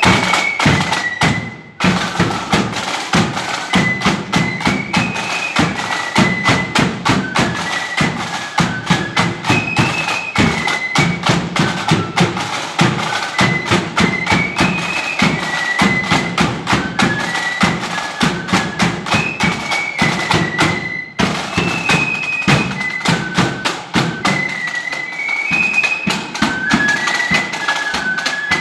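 Marching flute band playing a tune in unison on flutes, over rattling snare drums and a steady bass drum beat. The music drops out briefly twice, about two seconds in and again about twenty-one seconds in.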